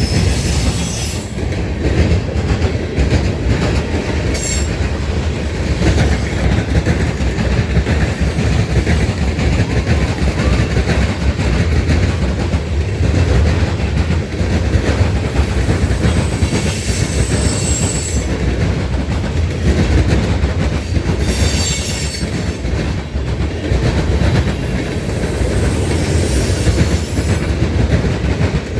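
A train rolling past, its wheels clacking over the rail joints in a steady rumble. Short high-pitched wheel squeals come and go a few times.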